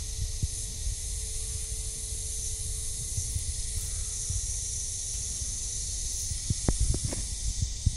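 Steady high hiss with uneven low rumble, and a few sharp taps about six and a half to seven seconds in.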